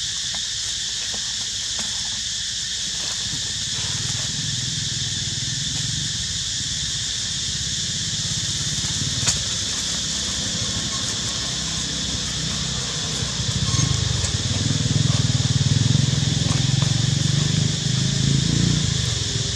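Steady high-pitched outdoor hiss, with one sharp click about nine seconds in and a low rumble that swells from about thirteen seconds in and fades near the end.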